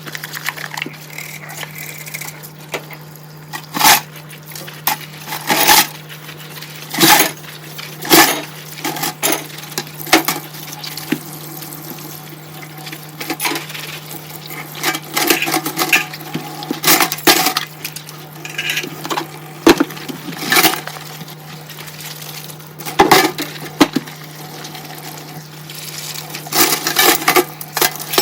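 Dishes and cutlery being washed by hand in a sink: repeated sharp clinks and knocks of crockery and utensils against each other and the sink, with water, over a steady low hum.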